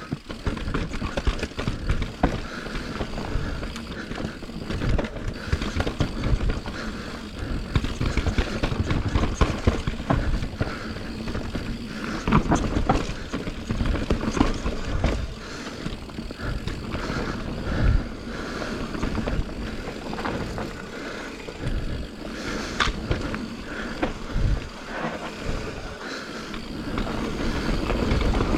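Santa Cruz Nomad mountain bike ridden down a rough trail: a steady rumble of tyres on dirt, broken by frequent sharp knocks and rattles as the bike hits bumps.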